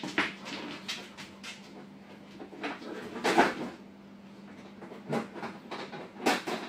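A dog nosing and pawing a pot on a hard floor: a few irregular knocks and scrapes, the loudest about three and a half seconds in, over a faint steady low hum.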